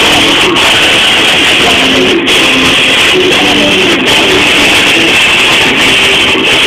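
Loud guitar music.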